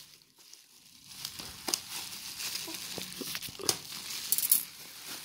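Plastic bubble wrap crinkling as it is handled and cut open with scissors, starting about a second in, with scattered sharp crackles and snips.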